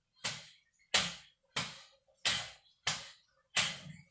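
Hands slapping against the thighs in a steady rhythm, six slaps about one and a half a second, each a sharp smack that fades quickly. This is a Chi Kung warm-up done with the knees flexing and a forceful breath out at each stroke.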